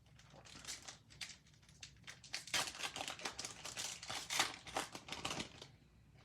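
A card pack's wrapper crinkling and crackling as it is torn open and handled, heaviest in a dense run from about two and a half seconds in, stopping shortly before the end.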